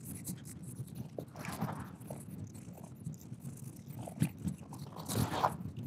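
Microfiber cloth scrubbing upholstery cleaner into a vinyl motorcycle seat: irregular rubbing and scuffing, with two longer swells of scrubbing noise, one about a second and a half in and one near the end.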